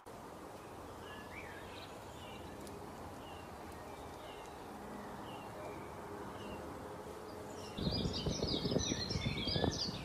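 Birdsong: one bird repeats a short, falling chirp about once a second over a steady hiss. About eight seconds in, the sound gets louder: several birds chirp busily together over a low, uneven rumble.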